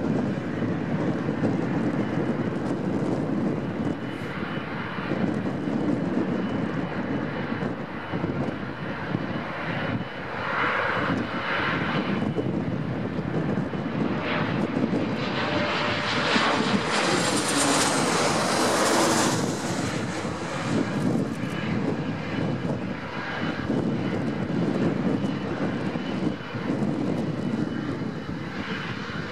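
Boeing 777-200ER's twin GE90 turbofans running at taxi power as the airliner rolls slowly by, a steady jet rumble and hiss. About halfway through the engine noise swells into a louder rushing whine, then settles back.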